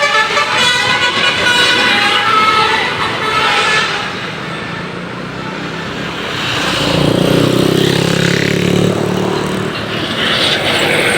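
Bus's multi-tone telolet Basuri air horn playing a short stepping tune for about the first four seconds, then traffic noise with a lower drone from a passing vehicle.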